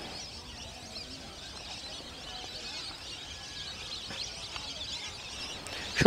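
Faint background ambience of small birds chirping over a low steady hiss.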